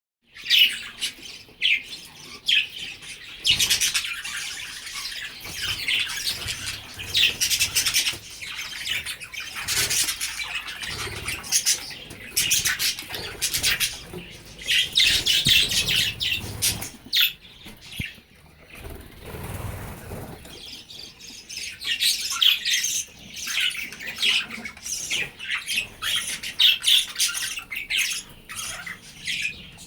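A colony of budgerigars chirping and chattering all at once, a dense, unbroken mix of short high chirps, with a brief quieter spell about two-thirds of the way through.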